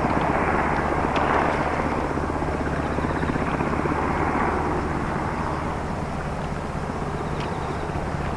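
Diesel engines of the navy service boat YDT01 running steadily as it comes into harbour: a low engine drone with a fast pulsing throb and a rushing wash that swells about a second in and again around four seconds.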